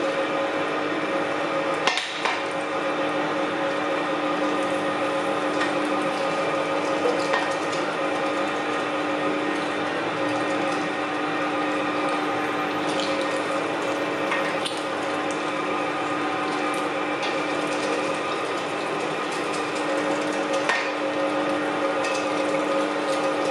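Electric meat grinder running with a steady motor hum as meat is forced through the grinding plate, with a couple of sharp knocks about two seconds in and near the end.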